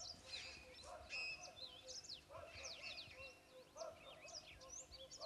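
Birds calling in the bush: many quick, high, falling chirps and whistles over a lower call repeated roughly once a second.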